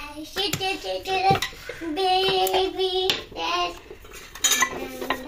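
A child singing in a high voice, holding notes in short phrases, with a few sharp knocks among them.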